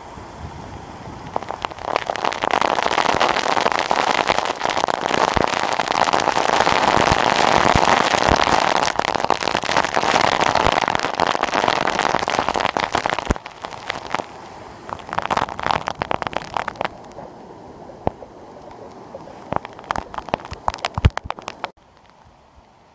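Waterfall water crashing onto rocks, with spray pattering close by as a dense crackly splashing. It is loud from about two seconds in, eases after about thirteen seconds to a softer wash with scattered splashes, and drops off suddenly near the end.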